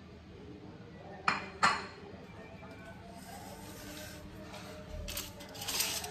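Two sharp clinks of a plastic rice paddle knocking against a plate as rice is dished out, about a second and a half in, followed by softer rustling and small knocks of handling.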